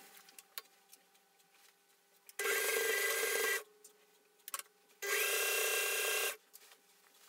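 Singer electric sewing machine stitching a seam in two short runs of about a second each, the first a couple of seconds in and the second about five seconds in, with faint clicks between them.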